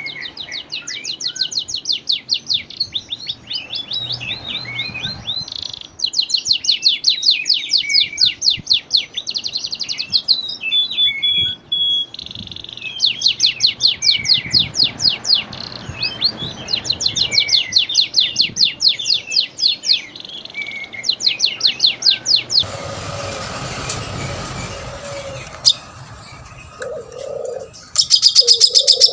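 Recorded songbird song used as 'masteran' for training cage birds: rapid trills of sharp, high chirps in repeated bursts of a few seconds each, with some low cooing notes near the end.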